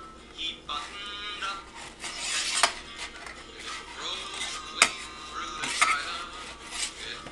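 A spatula scraping and clicking against a metal baking sheet as baked cookies are lifted off it. There are several sharp clacks, the loudest a little past halfway through.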